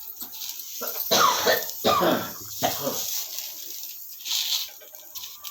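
A person coughing, three coughs in quick succession about a second in.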